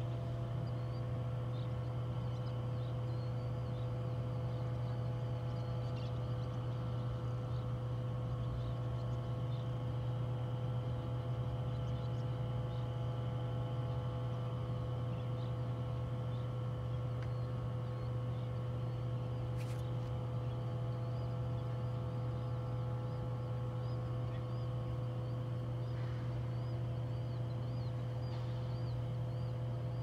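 Steady low machinery hum with several fixed tones above it, unchanging throughout, with faint high bird chirps scattered over it.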